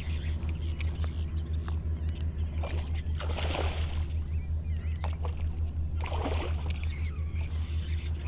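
A hooked fish splashing and thrashing at the water's surface beside a kayak, in two bursts about three and six seconds in, over a steady low hum.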